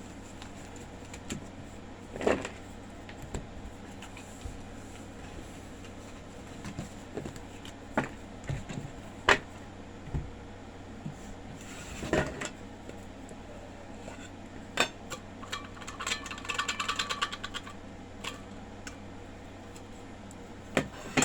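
Tarot cards being handled and shuffled on a table: scattered taps and knocks, with a rapid fluttering run of clicks about sixteen seconds in.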